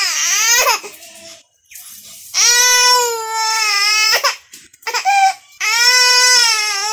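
Baby crying in long wails, each held steady for a second or two, with short pauses for breath between.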